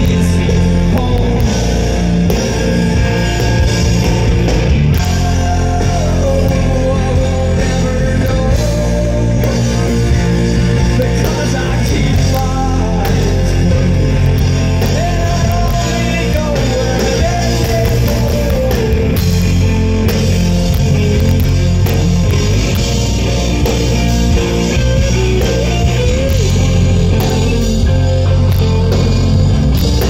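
Rock band playing a song live: loud electric guitars, bass and drums, with a wavering melody line over them.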